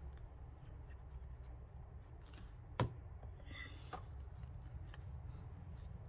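Quiet handling of paper and a glue bottle over a faint steady low hum, with light rustling and one sharp tap a little before the halfway point.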